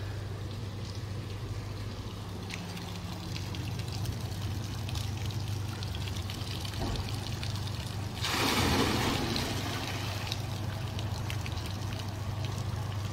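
Water trickling and splashing in a kinetic bucket fountain, with a louder rush of water lasting about a second, about eight seconds in, over a steady low hum.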